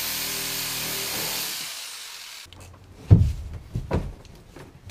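Reciprocating saw running, cutting the tanks' PVC plumbing, then winding down and stopping. A few heavy knocks and thumps follow as a large plastic water tank is shifted and lifted.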